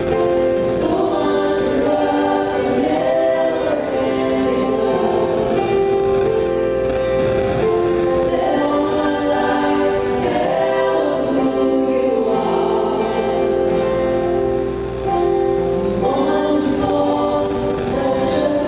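A choir singing in harmony, holding long notes.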